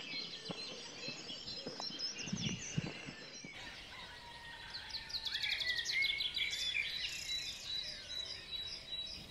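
Dawn chorus: several songbirds singing at once, overlapping songs and calls with a burst of rapid trills in the middle. A few soft thumps sound in the first three seconds.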